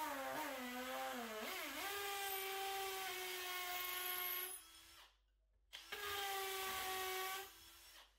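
Makita cordless hammer drill with a 7mm masonry bit boring through a timber batten into a masonry wall, in two runs with a short stop between. The motor whine sags in pitch as the bit bites in, then holds steady under load.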